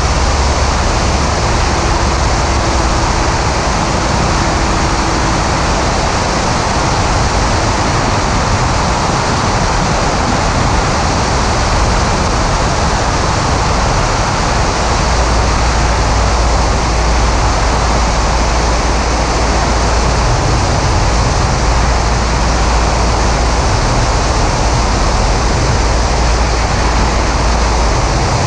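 Steady rush of wind buffeting a camera mounted outside on the wing strut of a Maule M5-180C in flight, with a heavy low rumble that gets stronger about halfway through. Under it, the plane's engine and propeller drone on.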